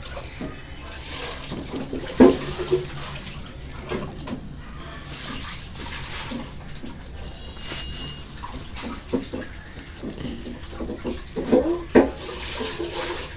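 Wet, sticky squelching of homemade glue-and-detergent slime being kneaded and squeezed by hand, coming in uneven swells with a few sharp clicks.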